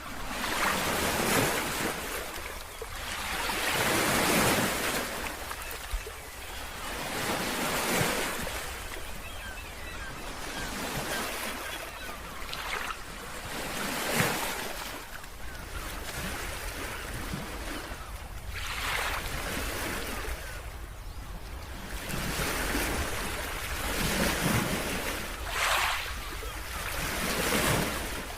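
Ocean surf: waves breaking one after another, the wash swelling and falling away every few seconds.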